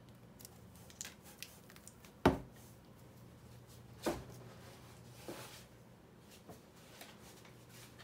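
Plastic packaging rustling and crinkling as a coiled cable is handled, with scattered small clicks, a sharp knock a little over two seconds in and a smaller one at about four seconds.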